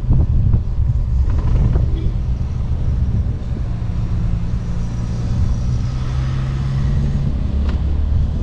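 Motor scooter riding along a road: steady low wind and road rumble on the microphone, with an engine hum that holds a steady pitch for a few seconds in the middle.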